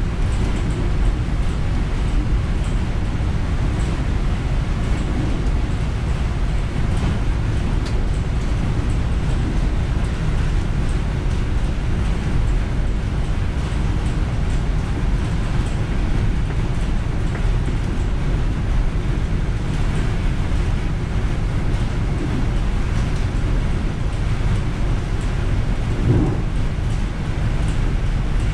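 Steady rumbling running noise inside the cab of an Amtrak passenger train at speed, mixed with the roar of a double-stack container train passing close on the next track. Near the end there is a single short knock.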